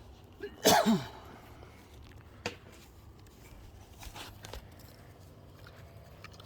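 A single short cough, falling in pitch, about a second in, then a faint click.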